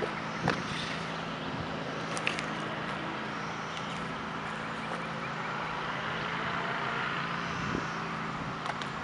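Steady outdoor background hum: a constant low drone under an even hiss, with a few faint clicks.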